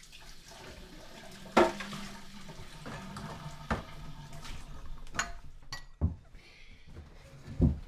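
Dishes clattering: several separate knocks, the loudest about one and a half seconds in and near the end, over a low steady hum.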